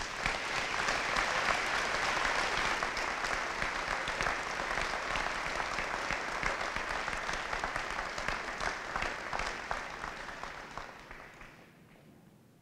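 Audience applauding, starting all at once and fading out about eleven seconds later.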